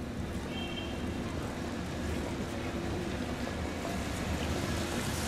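Hess electric trolleybus drawing closer, a steady rumbling hiss of tyres and drive that grows gradually louder, with wind on the microphone.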